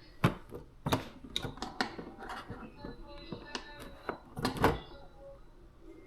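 Irregular sharp knocks and clicks, several a second at times, with the loudest pair about four and a half seconds in, over soft background music.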